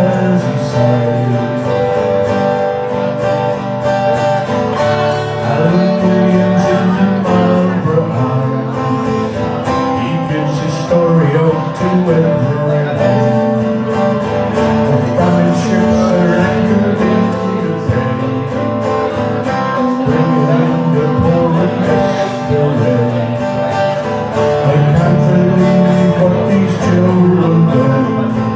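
Live folk music: a strummed acoustic guitar with a voice singing over it.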